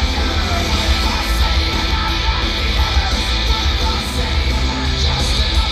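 Loud hard-rock music driven by distorted electric guitar, with heavy, booming bass.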